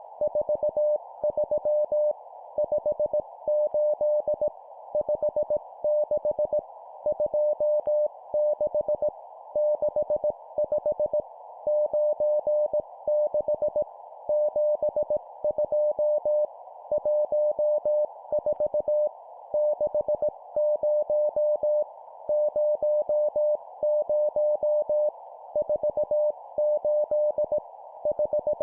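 Morse code (CW) practice sending at 17 words per minute: a single steady beep keyed on and off in dots and dashes, with short gaps between characters and longer ones between words, over a steady hiss like a radio receiver's noise.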